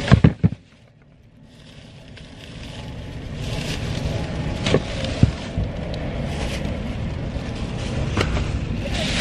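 Plastic grocery bags rustling and bumping as they are lifted from a shopping cart and loaded into a car, with a few short knocks. Under them runs a steady noise that builds up after a brief drop near the start.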